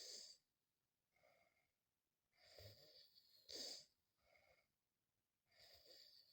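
A sleeping child snoring quietly in a slow, regular rhythm. Breaths come about every three seconds: a longer breath ending in a sharp, louder catch, then a short, fainter one.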